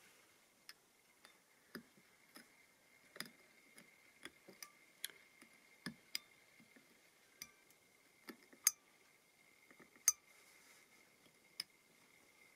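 Tip of a hobby knife blade picking and scraping at the face of a guitar headstock: an irregular run of faint, sharp ticks and clicks, the loudest two about two-thirds of the way through, a few ringing briefly.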